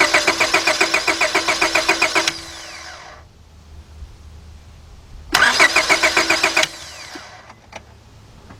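Starter motor cranking the 2002 Honda Accord's 2.3-litre four-cylinder engine in two bursts, the first about two and a half seconds long and the second shorter, with an even pulsing beat of about six or seven a second. The engine never catches: a crank-but-no-start.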